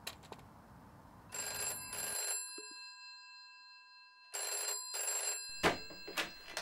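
Rotary-dial desk telephone ringing, two double rings about two seconds apart. Near the end there are a few clattering knocks as the handset is picked up.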